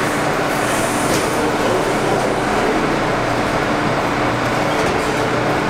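Bombardier R179 subway train standing at the platform with its doors open, giving off a steady hum and hiss.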